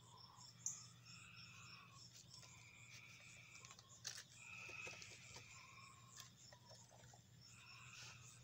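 Near silence with a faint evening chorus of calling insects and frogs: repeated trills about a second long, at two pitches, overlapping one another. A few faint clicks are heard among them.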